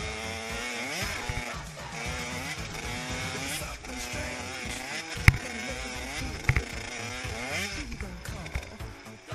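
A 50cc two-stroke youth motocross bike engine revving hard, its pitch rising and falling again and again as the throttle is worked. A couple of sharp knocks come about five and six and a half seconds in.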